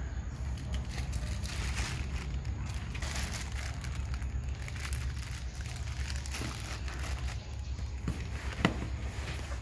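Cardboard box flaps and plastic-wrapped packages rustling and crinkling as they are handled, over a steady low rumble, with one sharp knock near the end.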